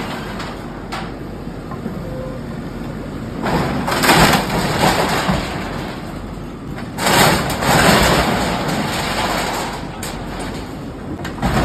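Demolition by a bulldozer: crashing, crunching and breaking as makeshift shop structures are torn down, with two louder spells of crashing, the first about three and a half seconds in and the second about seven seconds in.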